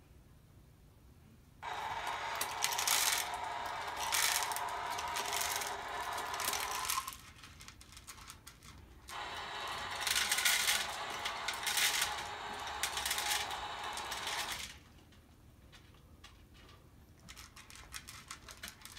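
Automatic cat feeders dispensing dry kibble twice: each time a small motor runs and kibble rattles down into the bowl for about five seconds, starting and stopping abruptly, with the second run starting about two seconds after the first stops.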